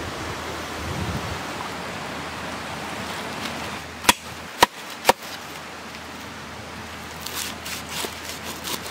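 A steady rushing noise, then a cleaver chopping lemongrass stalks on a wooden cutting board: three sharp loud chops about half a second apart, then a run of lighter, quicker cuts near the end.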